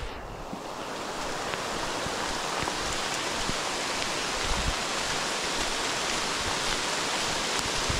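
Steady rain falling: an even hiss with faint scattered drop taps.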